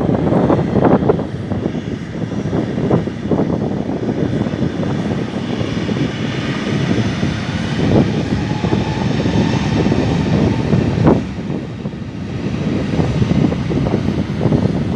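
Jet airliner taking off, a loud engine rumble with a rushing hiss and a faint whine that swell in the middle and then fall away. Wind buffets the microphone throughout.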